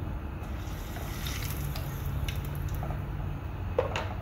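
Hot cooking oil in a deep frying pan, sizzling faintly with a few small crackles and pops, over a steady low hum; a sharper click comes near the end.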